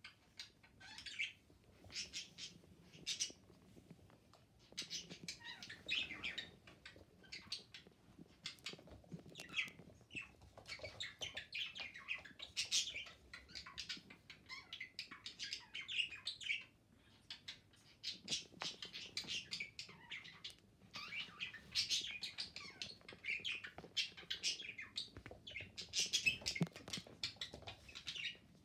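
Shih Tzu puppy playing rough with plush toys on a fleece blanket: quick, irregular bursts of high, scratchy rustling and scuffling that keep going, pausing for a moment around the middle.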